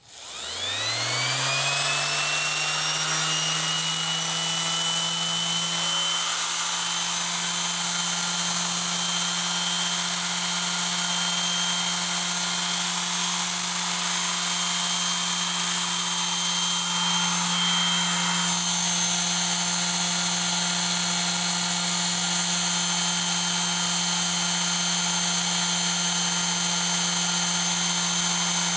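Chicago Electric 5-inch random orbital palm sander switched on with its sanding pad removed. It spins up over about a second and a half, then runs steadily at full speed with no load, a hum with a high whine: a first run to break in the motor's brushes.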